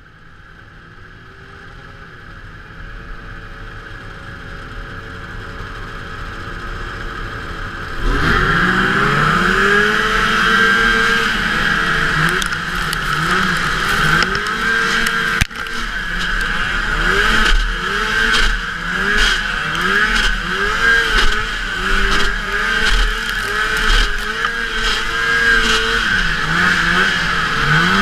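Vintage fan-cooled two-stroke snowmobile engines at the start line, growing steadily louder; about eight seconds in the rider's sled goes to full throttle. After that the engine revs up and down over and over as the throttle is worked through the turns of the snocross course.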